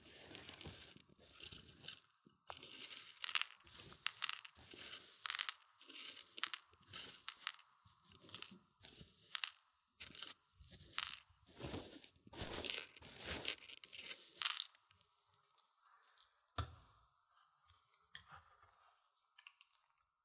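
Dry mung beans stirred and scraped around inside a silicone ear model, crunching and rattling close to the microphone. The sound is dense and continuous for about fifteen seconds, then thins to a few scattered scrapes with one sharp knock.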